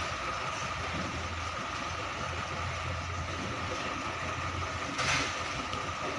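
Diesel engines of container trucks idling with a steady low hum. A short hiss comes about five seconds in.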